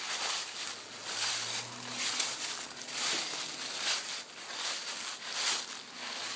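Footsteps walking through dry fallen leaves, a crunch of leaf litter with each step at an even walking pace of about one step every two-thirds of a second.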